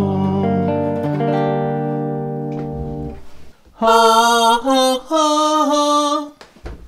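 Vocal multi-effects processor: a held, layered harmony chord fades away over about three seconds. Then a man's singing voice comes through shifted up in pitch to sound like a woman's, in two short phrases.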